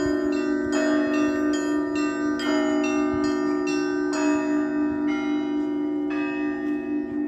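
Church bells ringing: several bells struck in quick, uneven succession, about two to three strokes a second, over the steady hum of a deep bell that keeps sounding throughout.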